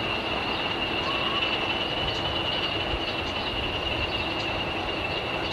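Two Class 45 diesel locomotives, with Sulzer twin-bank twelve-cylinder engines, running steadily as they approach hauling a train. A steady high-pitched whine sits over the even engine and rail noise.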